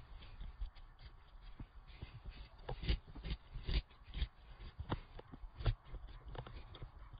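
A paper bag crinkling and rustling in irregular sharp crackles and taps as a kitten pushes its head in and moves about inside it, louder in the middle stretch.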